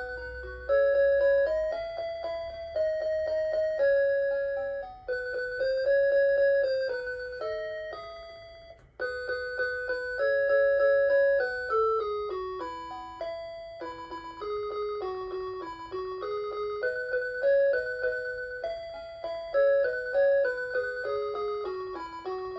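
Hitachi DW-237 melody alarm clock playing one of its built-in children's-song tunes: a melody of clear held notes over a simple accompaniment, with a brief pause about nine seconds in before the tune goes on.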